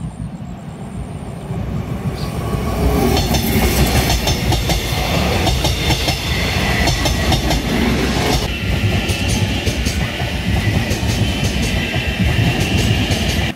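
Taiwan Railways electric passenger trains passing close by, a heavy rumble with the wheels clicking over the rail joints. About eight and a half seconds in the sound changes as a second train takes over, with a steady high whine, and it cuts off suddenly at the end.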